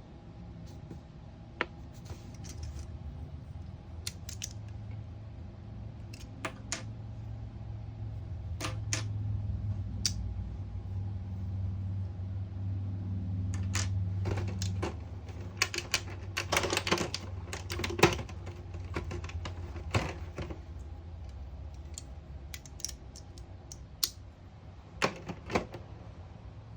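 Sharp taps and clicks from a Snap Circuits sound-activated machine-gun circuit, set off by tapping, with a dense run of rapid clicks about two-thirds of the way in. A low steady hum runs underneath and swells in the middle.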